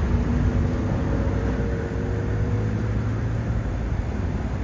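Steady low outdoor rumble with the faint hum of a distant engine, which fades out about halfway through.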